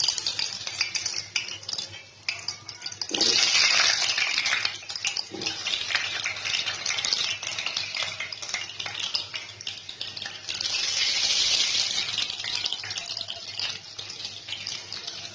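Potato pieces sizzling in hot mustard oil in a kadai, a dense steady hiss that swells loud twice, about three seconds in and again about ten seconds in, as more pieces go into the oil. A few light clicks of a utensil against the pan.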